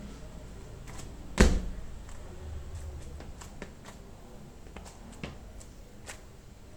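A single heavy thump about a second and a half in, followed by a few scattered light clicks and taps.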